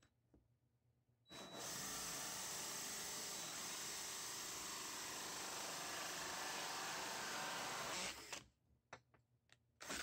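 DeWalt cordless drill spinning a bimetal hole saw, cutting the handle bore through a wooden door: one steady run of drilling for about seven seconds, starting over a second in, followed by a few short sharp sounds near the end.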